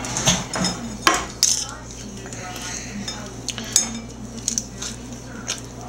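Metal kitchen tongs clicking and clinking against a wire cooling rack and plate as a raw roast is gripped and lifted, a scattering of sharp clinks, the loudest about a second in and near the middle. A faint steady hum runs underneath.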